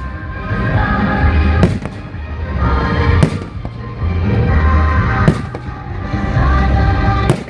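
Fireworks going off: four sharp bangs about one and a half to two seconds apart, over loud music with a steady beat.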